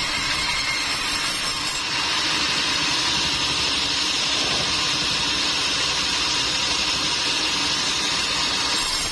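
Sawmill machinery running steadily, with an even mechanical noise that shifts slightly about two seconds in and again near the end.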